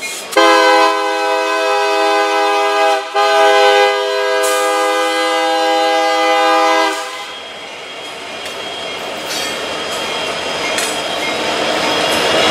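Union Pacific SD70M locomotive's Nathan K3HA air horn sounding two long blasts, the first broken off briefly about three seconds in, the horn stopping about seven seconds in. After that, the freight cars roll past with a steady clatter of steel wheels on the rails.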